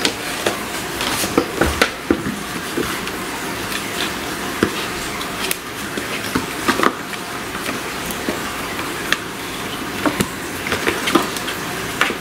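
Kittens pawing, scrabbling at and climbing on a cardboard drink carton on a wooden floor: irregular light scratches and knocks over a steady background hiss.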